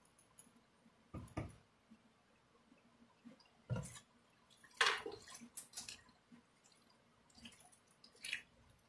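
Bare hands squishing and kneading sauce-coated sliced pork and onions in a mixing bowl: a few scattered wet squelches, the loudest about halfway through.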